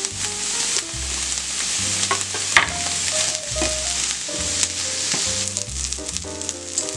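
Sliced sausage, onion and red bell pepper frying in oil in a non-stick pan, sizzling steadily. A few sharp knocks come as the sausage is tipped in and stirred with a wooden spatula.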